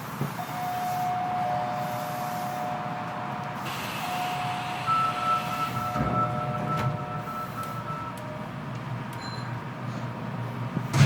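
Toshiba IGBT VVVF inverter and permanent-magnet synchronous traction motors of a Kita-Osaka Kyuko 9000 series train starting off and accelerating, heard through the car floor above the motor. Steady whistling inverter tones, with a higher tone joining about five seconds in, over a low motor hum; a sharp knock near the end.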